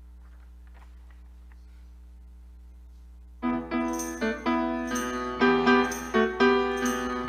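Grand piano starts playing about three and a half seconds in, with struck chords and a moving melody, after a low steady hum with a few faint ticks.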